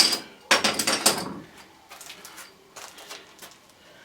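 A sharp click, then a rattling clatter lasting about a second, then a few faint clicks: small hard parts being handled at an electrical fuse box.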